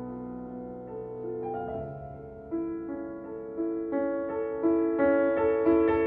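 Background piano music with slow, sustained notes. From about halfway through, a new note starts roughly every second, and it grows louder toward the end.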